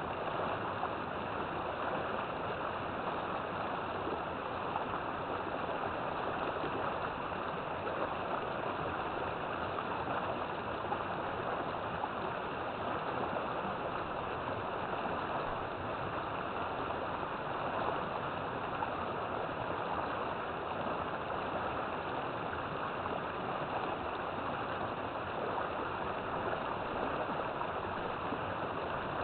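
River water flowing over rocks, a steady rushing and gurgling with no breaks.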